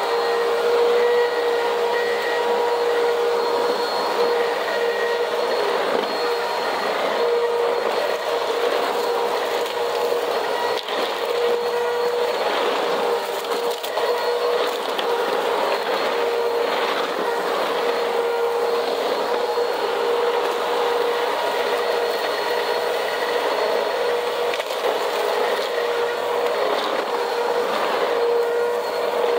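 Vacuum cleaner running steadily on a cement floor with a constant whine. Over the whine comes dense crackling and crunching as it sucks up debris, thickest around the middle.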